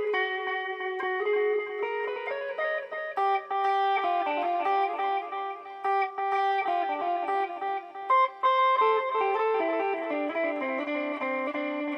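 Electric guitar played through a BOSS DD-8 digital delay pedal in Warp mode: a melody of single notes, each note's echoes ringing on and overlapping the next.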